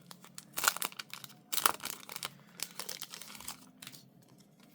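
Paper packaging crinkling and rustling as items are unwrapped and handled, in irregular rustles, with two louder crinkles a little over half a second and about a second and a half in.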